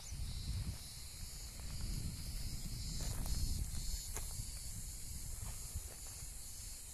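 A steady high-pitched insect chorus over an uneven low rumble of wind on the microphone, with a few soft clicks from footsteps on dry ground.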